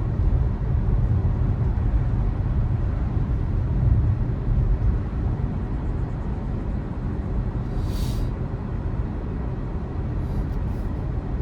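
Road and tyre noise of a moving 2020 Tesla Model 3 Performance electric car, a steady low rumble with no engine sound, with a brief hiss about eight seconds in.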